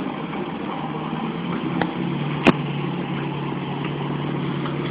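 Small step-through motorcycle engine running at a steady speed. A faint click comes just before two seconds in, and a sharp, louder click about half a second later.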